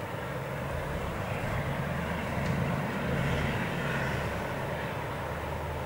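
Distant train engine running with a steady low drone.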